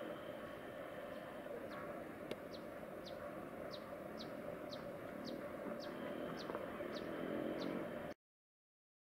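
An animal calling: about ten short, high notes, each falling quickly in pitch, repeated roughly twice a second over a steady background hum. The sound cuts to silence near the end.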